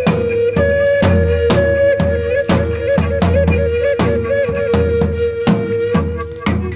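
Live folk tune on an end-blown flute over a steady drum beat about twice a second. The flute holds long notes, wavering with quick ornaments on a higher note before settling back onto a long held lower one.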